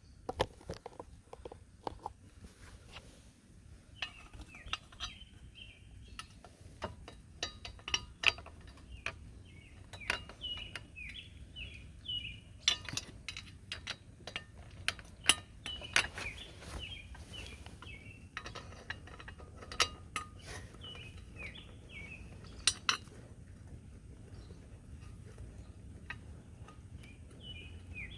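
Irregular metal clinks and taps of hand tools and screws as an aftermarket exhaust is screwed onto a moped, with a bird singing a short chirping phrase over and over in the background.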